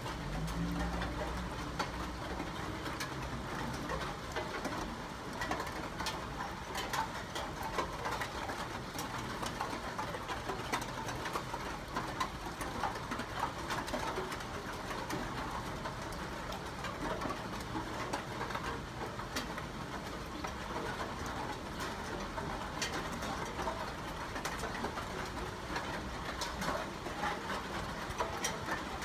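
Steady rain falling, an even wash of sound dotted with many separate drops ticking.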